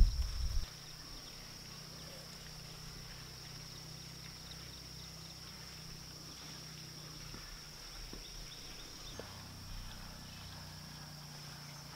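Insects keeping up a steady high-pitched drone over a quiet rural background. A loud low rumble cuts off less than a second in.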